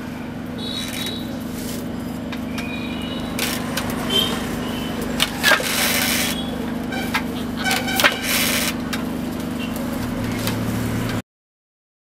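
Wooden hand loom weaving a dried-grass mat: irregular wooden knocks and clacks as the strands are worked in and beaten up, over a steady low hum. The sound cuts off abruptly about a second before the end.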